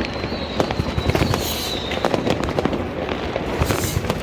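New Year's Eve fireworks and firecrackers going off in rapid, irregular succession, a dense run of cracks and bangs. A thin high whistle slowly falls in pitch and fades out about halfway through.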